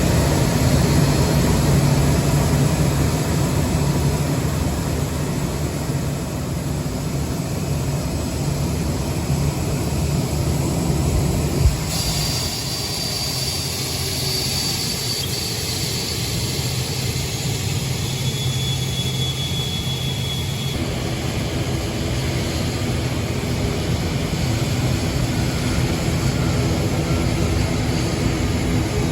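Boeing 787-8 jet engines running steadily, a low rumble with a faint high whine. The sound changes abruptly about twelve seconds in and again about twenty-one seconds in, and a single sharp click comes just before the first change.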